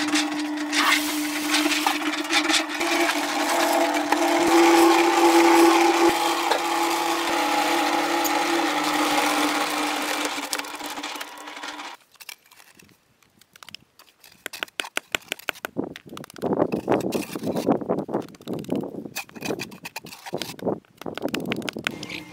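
A motor-driven tool runs steadily with a held hum, then cuts off suddenly about twelve seconds in. After that come scattered scratching and light knocking sounds.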